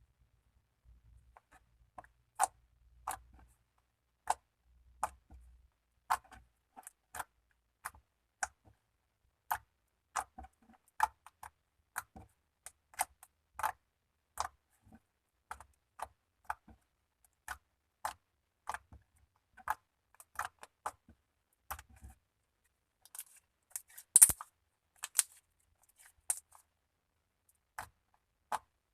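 Slime being pressed and worked by hand, giving small irregular clicks and pops, about one or two a second, with a louder cluster of pops late on.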